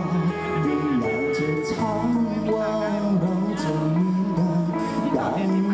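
A male vocalist singing through a microphone with a live band of drum kit and bass guitar, playing a steady beat under held, bending sung notes.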